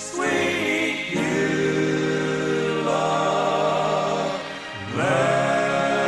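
Gospel vocal group singing long held chords, shifting to a new chord a few times, as a hymn draws to its close.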